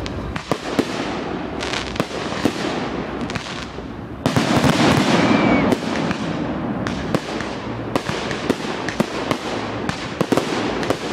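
Fireworks display: a steady run of sharp bangs and crackles from bursting shells, with a louder, denser volley about four seconds in lasting around a second and a half.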